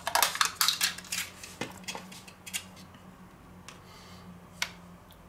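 A spoon scraping and clicking in a plastic cup of sour cream while scooping it out: a quick run of clicks and scrapes over the first two seconds, then a few separate taps.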